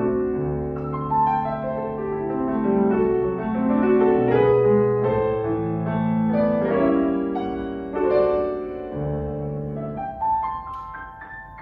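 Grand piano played solo: chords over sustained bass notes, thinning about ten seconds in to softer single high notes.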